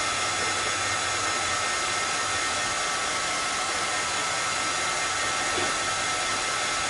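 Small handheld heat gun running steadily: an even blowing hiss with a faint high whine, warming a piano hammer to soften the glue around a broken shank stub.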